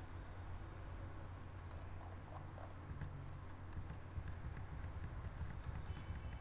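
Irregular light clicks of a computer mouse while a document is scrolled, starting about two seconds in and coming thickest in the second half, over a steady low hum.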